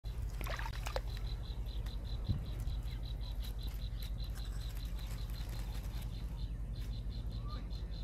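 Nestlings' begging cheeps, short and high, about half a second in. Behind them an insect chirps steadily, about six pulses a second, over a low steady rumble.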